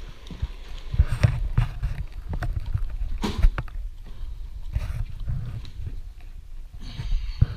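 Irregular thumps and knocks of footsteps on a hardwood floor, mixed with bumps from the camera being handled, over a low steady rumble; the sharpest knocks fall about a second in, about three seconds in, and near the end.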